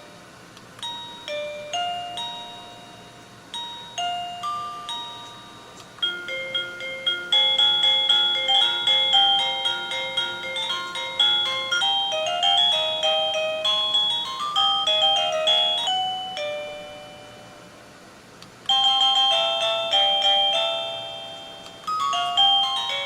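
Plug-in wireless doorbell chime unit playing its selectable ring tones in turn, in clean electronic notes. First come several short chime phrases of a few notes each. About six seconds in, a longer quick melody plays for about ten seconds, and near the end another tune starts.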